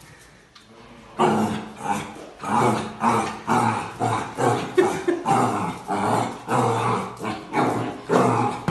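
A puppy barking and growling over and over at its own reflection in a mirror, starting about a second in, with calls coming about twice a second.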